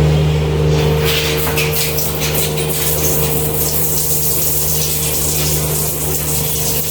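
Electric water pump switching on and running with a steady hum over rushing water.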